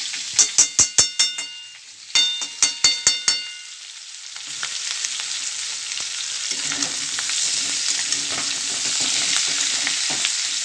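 Two quick runs of about six sharp, ringing metal taps each, a metal utensil rapped against metal. Then a steady sizzle as boiled potatoes fry in ghee and oil in an iron kadai, stirred with a metal spatula.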